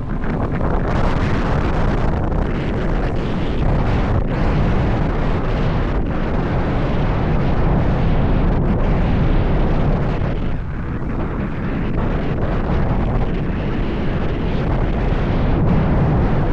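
Steady, loud wind buffeting the microphone of a handlebar-mounted Insta360 X4 camera on a moving bicycle.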